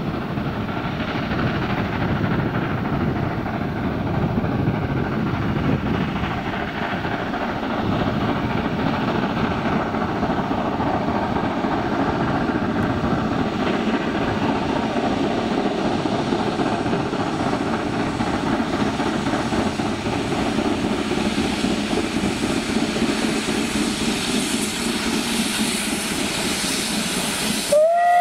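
Steady noise of steam locomotive 555.3008 working its train as it approaches, mixed with wind on the microphone. In the last moment its steam whistle begins to blow.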